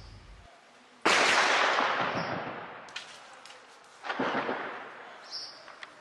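Two loud explosive blasts, one about a second in and a weaker one about four seconds in, each followed by a long echoing rumble that dies away. A few faint sharp cracks come between them.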